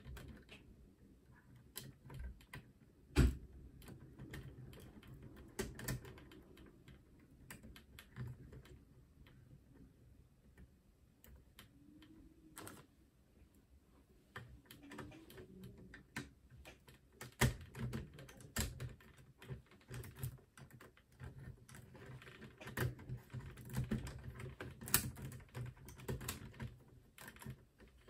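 LEGO bricks being handled and pressed together: irregular plastic clicks and clacks, with a few sharper, louder snaps, one about three seconds in and one near the end.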